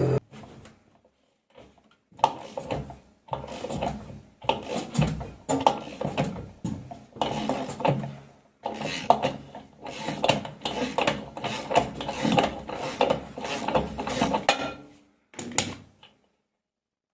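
Irregular clattering, knocking and rubbing of mechanical parts in uneven bursts, ending with one last clatter after a short gap.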